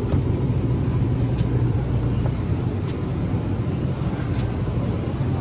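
Steady low hum and rumble of store background noise, with a few faint clicks.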